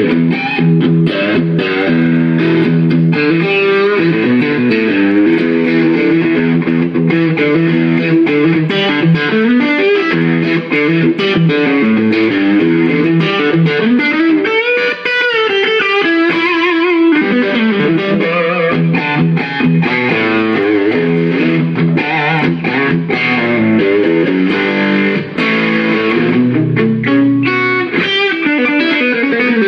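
Knaggs electric guitar played through a Gizmoaudio drive pedal into a Dr Z Maserati amp: distorted lead playing in quick runs, with string bends and vibrato and one wide bend about halfway through.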